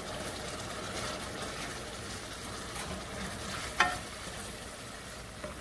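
Chopped onions and tomatoes sizzling in a stainless steel pan as they are stirred and scraped with a wooden spoon. A single sharp knock stands out about four seconds in.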